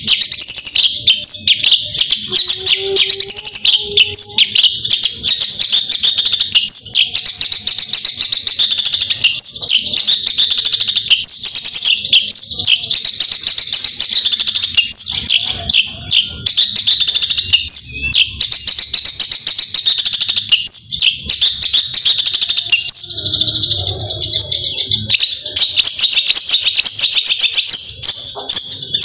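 Long-tailed shrike (cendet) singing in full song: a dense, nonstop stream of rapid high chattering notes and short whistled slurs.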